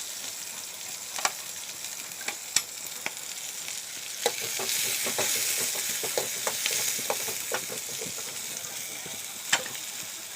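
Curry leaves and garlic sizzling in hot oil in a pan, stirred with a spatula that clicks against the pan now and then. The sizzle swells about halfway through.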